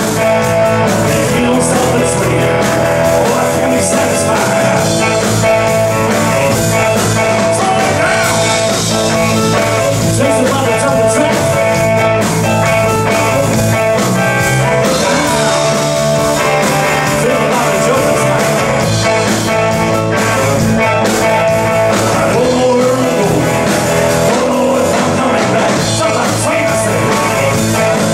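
Live blues-rock band playing, with a man singing over electric guitars.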